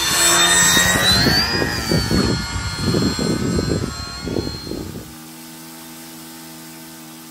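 Electric motor and propeller of a radio-controlled model seaplane whining, its pitch rising about a second and a half in, over rough low rumbling noise. About five seconds in it cuts abruptly to a steady low hum of several tones, which slides down in pitch near the end.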